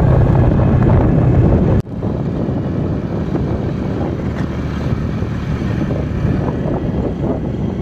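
A vehicle engine running steadily under wind and road noise, as heard while riding along. There is a brief sudden drop about two seconds in, after which the same steady noise resumes.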